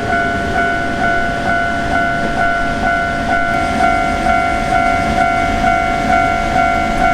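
Japanese level-crossing warning bell ringing steadily at about two dings a second, over the rumble of a Hankyu Kyoto Line electric train passing the crossing.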